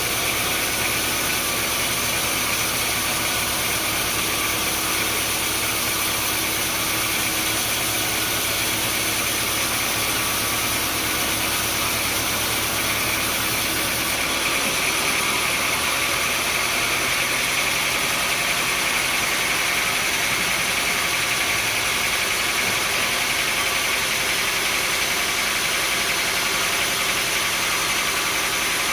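Sawmill machinery running steadily. About halfway through, the low hum drops and a higher-pitched hiss grows stronger.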